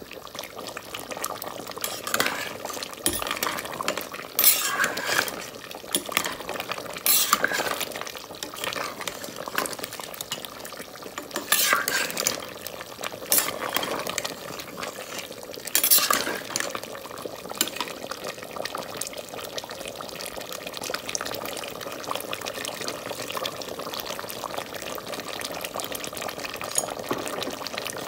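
Metal spoon stirring mutton korma in a metal cooking pot, scraping and clinking against the pot at irregular moments, over the steady sizzle of the gravy cooking.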